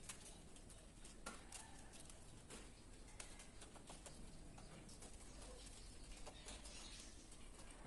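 Faint, scattered small clicks and taps of a screwdriver working the terminal screws of miniature circuit breakers in a distribution board, tightening them down onto the busbar.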